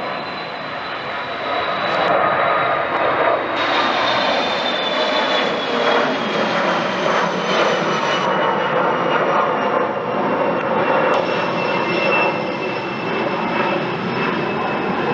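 Twin rear-engined regional jet climbing out after takeoff: a loud, steady jet engine noise with a high whine that slowly falls in pitch as it passes.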